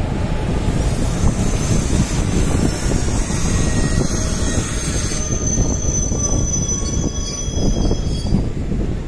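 Passenger train hauled by an Indian Railways WAP4 electric locomotive passing at speed: the locomotives and then the coaches run by with a steady loud rumble and rattle of wheels on rail. From about five seconds in to just after eight seconds, a high-pitched wheel squeal sounds over it.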